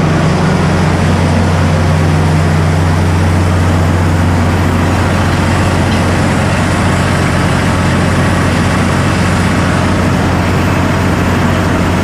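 Water well drilling rig's engine running steadily at a constant pitch, a deep hum with a broad rushing hiss over it.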